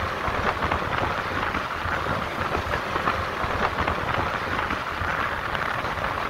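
Steady rush of wind over the microphone of a vehicle moving at speed, with a low rumble underneath.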